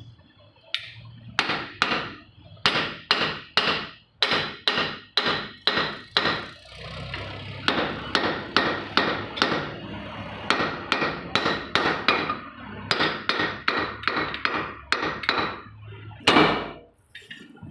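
Hammer blows on metal pump parts, a long run of sharp ringing strikes at a couple to a few per second, with one heavier blow near the end, typical of driving parts such as a bush or impeller into place during pump assembly.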